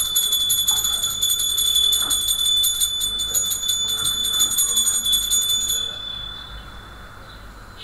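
A loud, high-pitched ringing tone, pulsing rapidly like an electric bell, that cuts off about six seconds in and fades away.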